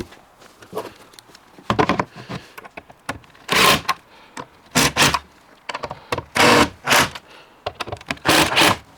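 Screws of a door's hinges being driven into a plywood cabinet carcass in about six short bursts, with knocks of the door being handled.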